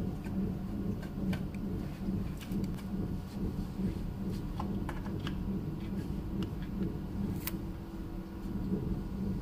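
Steady low rumbling background noise, with faint light clicks scattered through it as thin plastic shims tap against the print head.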